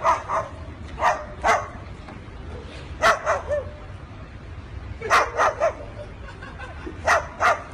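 Barking in short, sharp barks, grouped in twos and threes that repeat about every two seconds.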